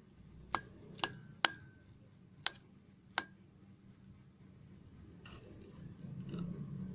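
Hard food bowl clinking as a dog eats from it: five sharp clinks with a short ring over about three seconds, then a few softer knocks near the end.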